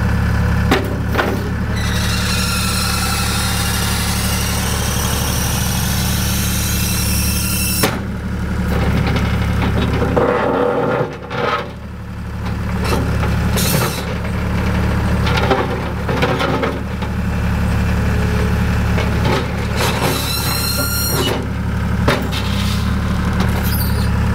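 John Deere 240 skid steer loader's diesel engine running steadily, briefly dropping off around the middle. Intermittent high squeals and squeaks sound over it, including a bright rising squeal about three-quarters of the way through.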